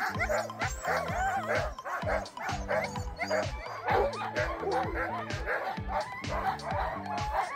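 A team of harnessed sled huskies yipping, whining and barking in excitement, eager to start running, over background music with a steady beat.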